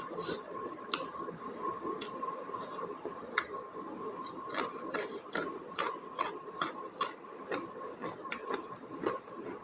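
A person eating buffalo innards curry up close, chewing with irregular wet smacks and clicks of the mouth. A faint steady whine runs underneath.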